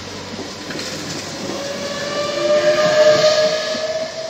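Trenitalia Minuetto electric multiple unit pulling away past the platform, its traction motors giving a whine that slowly rises in pitch as it accelerates, over the rumble of the wheels on the rails. It is loudest about three seconds in as the rear cab goes by.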